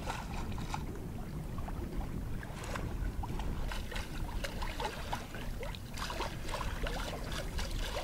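Water splashing and trickling along the bow of a steel sailing yacht moving under sail with the engine off. Many small splashes and bubbling blips sit over a low steady rumble.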